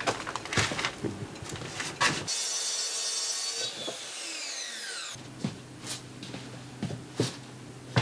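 Wooden boards and OSB panels being handled, with repeated knocks and bumps. In the middle, a high mechanical whine runs for about a second and a half, then falls in pitch as it winds down, like a power saw blade spinning down.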